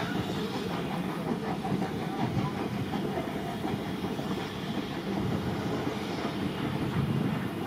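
Wooden railway passenger coaches rolling past, their steel wheels rumbling and clicking over the rail joints.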